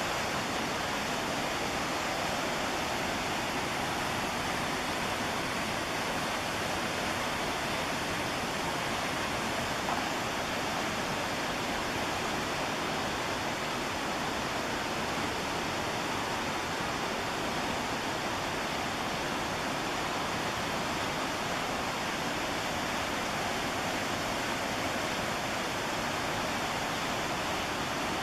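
Steady, unbroken rush of white water from the McKenzie River.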